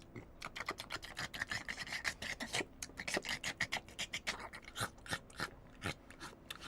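Crisp, rapid crunching of Tubby Toast being eaten: many quick crunches, several a second, starting about half a second in.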